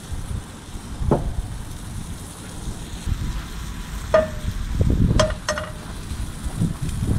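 Food sizzling in a pan on an outdoor cooking stove, with a few sharp metal clinks of a utensil against the pan, about one second in and three times between four and six seconds in. Wind rumbles on the microphone.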